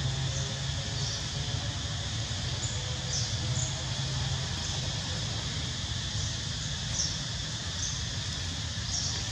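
Outdoor ambience: a steady low hum and a steady high hiss, with short high-pitched chirps every second or so.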